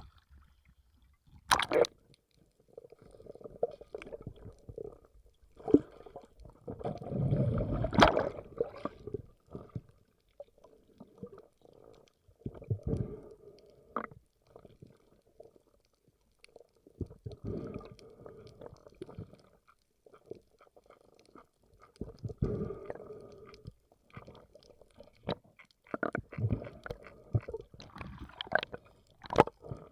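Muffled water sounds on a diving camera: irregular gurgling and sloshing surges that come and go every second or two, with a few sharp clicks.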